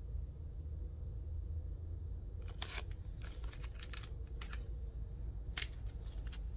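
Plastic comic-book bag crinkling and crackling as a bagged comic is handled, in a few short clusters, over a steady low rumble.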